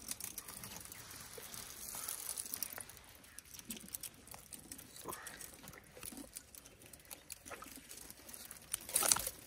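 An elephant feeding on a thorny bush: twigs crackle and snap and branches rustle as its trunk pulls thorny branches into its mouth. There is a louder rustle near the end.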